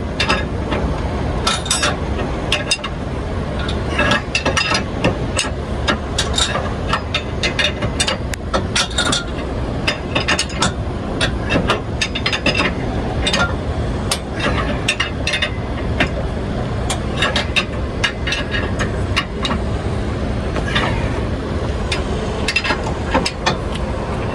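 Wrench work on the steel bolts of a weight distributing hitch: irregular metallic clicks and clinks, some in quick clusters, as the bolts are tightened. A steady low rumble runs underneath.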